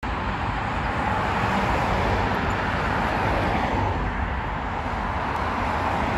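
Steady road traffic noise: cars running along a busy multi-lane road.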